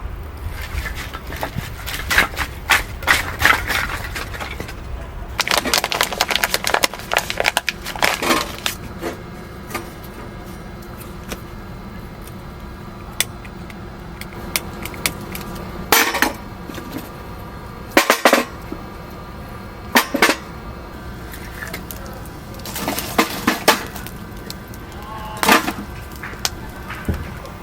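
Irregular clicks and clattering knocks, some in quick clusters and some single, over a faint steady hum.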